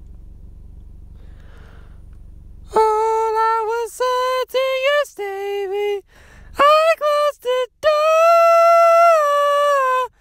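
Steady low rumble of a car cabin on the move. About three seconds in, a man starts singing a capella: high wordless notes in short phrases, the last held for about two seconds.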